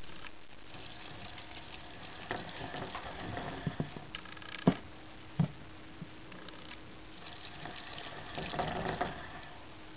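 Hamster running in a plastic exercise wheel: the wheel turns with a light, irregular rattle and patter of small feet on plastic, coming in two spells, with two sharp knocks about halfway through.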